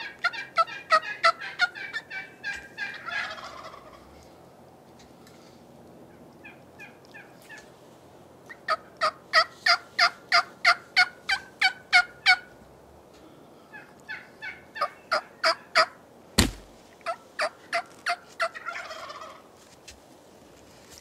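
Wild turkeys calling: runs of rapid turkey yelps, about four notes a second, with a Merriam's wild turkey tom gobbling about three seconds in and again near the end. A single sharp thump comes about two-thirds of the way through.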